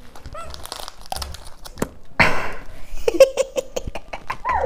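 Small plastic pouch crinkling and crackling in the hands as it is squeezed, then a burst of laughter with giggling near the end.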